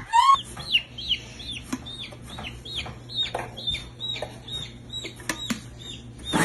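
A baby chick peeping over and over: short, high chirps that slide down in pitch, about three a second, with a few faint clicks among them.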